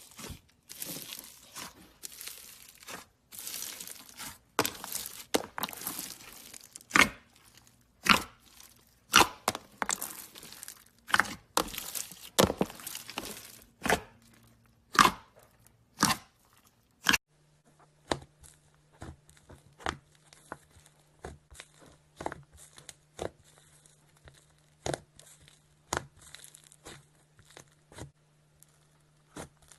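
Slime being squeezed and pressed by hand, giving quick irregular crackles, pops and sticky clicks. A little past halfway the clicks turn sparser and quieter, over a low steady hum.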